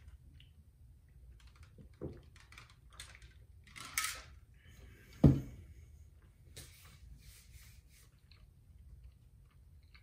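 Small scattered clicks and handling knocks as a plastic shaker bottle is drunk from and put back down on a desk. About five seconds in comes a single sharp knock with a short ring, the loudest sound, as the bottle meets the desk.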